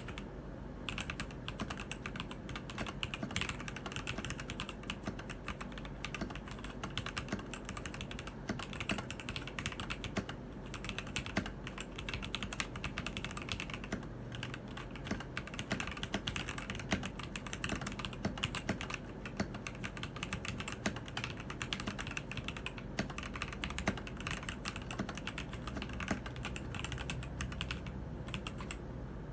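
Keydous NJ80 mechanical keyboard with TTC Gold Pink linear switches being typed on steadily: a continuous stream of keystroke clicks.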